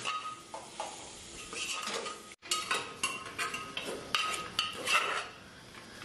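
A steel ladle stirring and scraping mutton in an aluminium pressure cooker, knocking against the pot's sides in an irregular run of clanks with a short metallic ring. The mutton is being fried in the spice paste.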